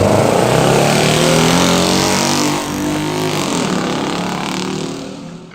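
Truck engine sound revving, its pitch wavering up and down, dropping away quickly near the end.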